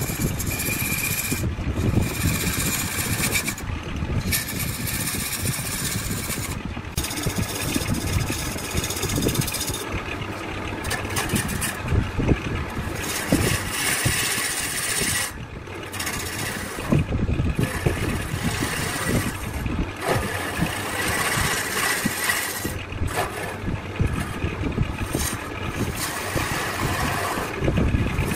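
Woodworking power machinery running with a steady mechanical noise.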